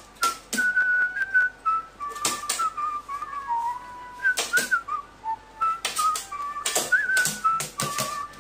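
Background music with a whistled melody that steps from note to note, over irregular sharp clicks and knocks.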